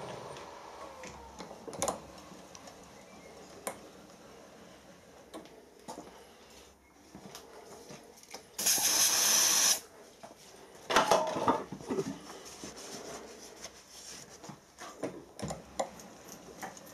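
Milling machine spindle switched off and running down, its pitch falling over the first second. Then come scattered metal clicks and knocks as the dial indicator on its magnetic stand is moved along the arbor, a hiss lasting about a second near the middle, and a short clatter of metal a second or so later.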